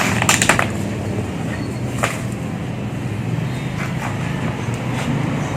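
Steady low outdoor rumble, with a few sharp clicks and knocks in the first half-second and another about two seconds in.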